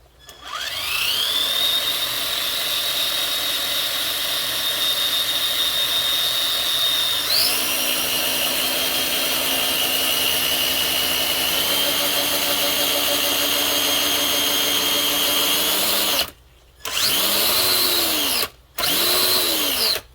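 Electric motor and gear train of a Traxxas TRX-4 RC crawler run on the bench, giving a loud, steady high whine. It spins up at the start and shifts to a lower pitch about seven seconds in, then stops and is run up and back down twice near the end. This is the pinion gear noise the owner is trying to cure by adjusting the gear mesh; he finds it better but still doesn't like it.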